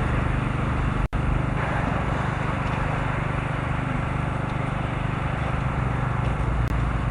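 A steady engine drone over a rushing noise, broken by a brief dropout about a second in.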